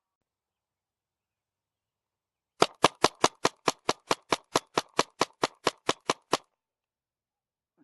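Paintball marker firing a rapid string of about eighteen shots, roughly five a second, starting a couple of seconds in and stopping abruptly after about four seconds.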